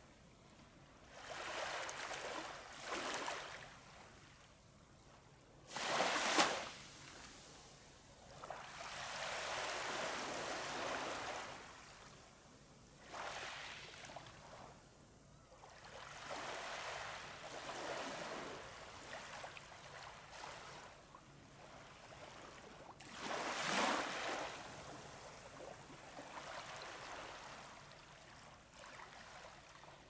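Small waves washing up on a sandy beach, the surf swelling and fading every few seconds, loudest about six seconds in and again near twenty-four seconds.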